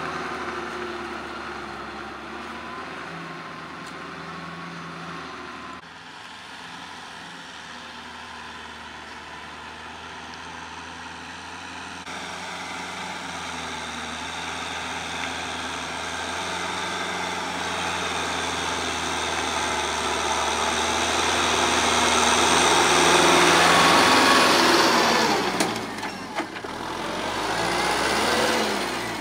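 Kubota M6040 tractor's diesel engine running steadily while it drives a rear rotary tiller through field soil. It gets louder as the tractor draws near, with a few abrupt shifts in the sound along the way.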